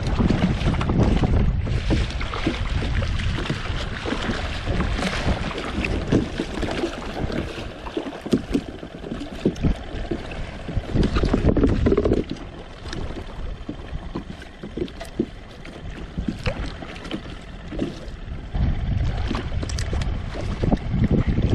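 Wind buffeting the microphone over water slapping and splashing against a fishing kayak's hull at sea. The wind eases about twelve seconds in and picks up again near the end.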